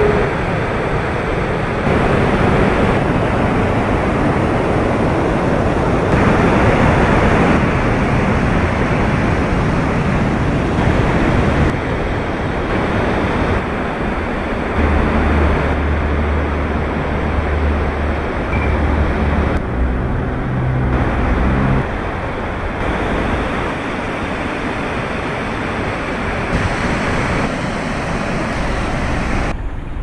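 Waterfalls and cascades over travertine ledges: a loud, steady rush of falling water, its level shifting abruptly several times. A low steady hum joins it for a few seconds past the middle.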